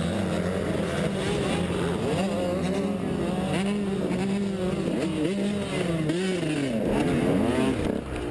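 Motocross bike engines at race pace, the rider's own bike among a pack of others, the pitch climbing and dropping as they rev through the corners, with several engines heard at once in the second half.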